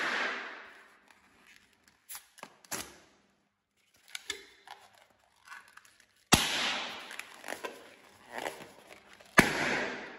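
Twisted latex modelling balloon segments popping as they are squeezed by hand: two sharp pops about three seconds apart, each followed by a noisy tail that dies away over a second or two. Soft squeaks and rubbing of the rubber come between the pops.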